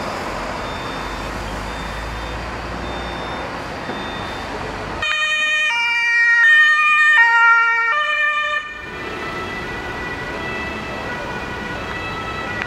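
Road and traffic noise, then a German two-tone emergency siren (Martinshorn) on an emergency-doctor van, stepping back and forth between a high and a low pitch. It comes in loud about five seconds in, lasts about four seconds, cuts off abruptly and gives way to fainter steady tones over the traffic.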